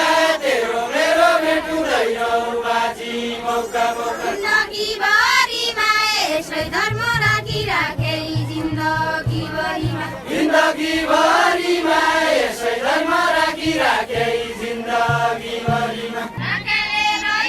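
Group singing of a Deuda folk song from Far-Western Nepal: drawn-out sung phrases with a wavering, ornamented melody, joined by a low pulsing beat from about seven seconds in.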